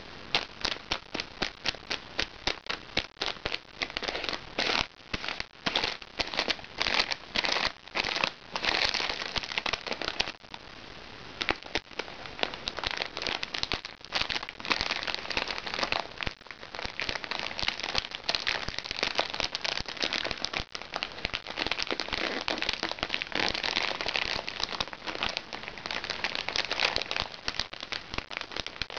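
Crinkly plastic wrapping handled and pinched by fingers: a run of sharp snaps and crackles, separate and several a second at first, becoming a denser continuous crackling after about ten seconds.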